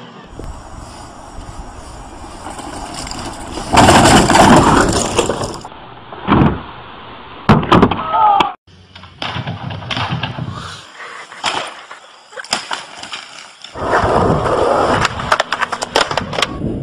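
Crashes and falls in quick succession: loud impacts and scraping, heaviest about four seconds in and again near the end.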